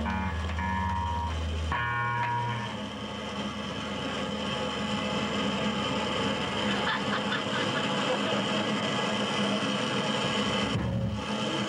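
Electric bass through an amplifier sounding a few sustained low notes, then steady amplifier hum and hiss with no playing.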